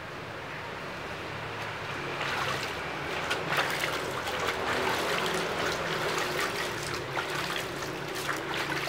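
Water sloshing and splashing in a plastic basin as a wet poodle is lathered and scrubbed by hand, busier from about two seconds in, over a steady low hum.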